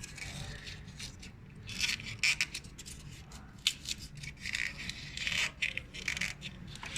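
Piece of polystyrene foam being worked by hand into an electric scooter's steering column tube. It makes irregular scraping and rubbing noises with a few short clicks.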